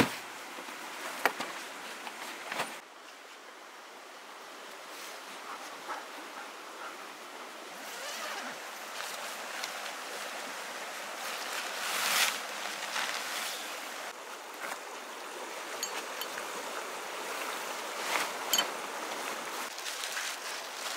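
Steady rush of a nearby stream, with loud rustling of tent fabric and its nylon bag as a Pomoly tent and its poles are unpacked, growing busier near the end. Two sharp knocks come in the first few seconds.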